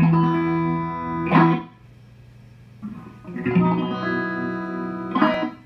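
Electric guitar through an amplifier playing two held chords, each ended by a short scratchy strum and then cut off, with a low amplifier hum in the gaps.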